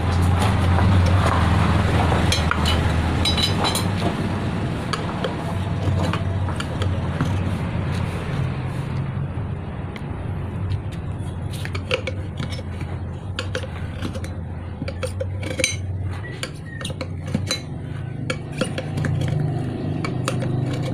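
Steel tyre levers clinking and scraping against a motorcycle wheel rim as the rear tyre's bead is pried loose, the light metal taps coming mostly from about halfway on. Under it runs a steady low mechanical hum, loudest early on.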